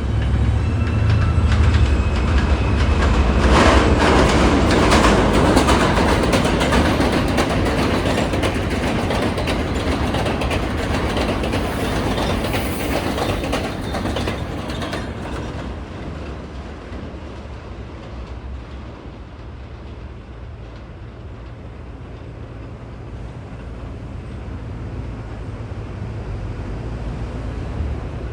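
New York City subway train running through the station, its wheels clattering over the rail joints. It is loudest a few seconds in, then fades away over the next ten seconds, leaving a low steady hum.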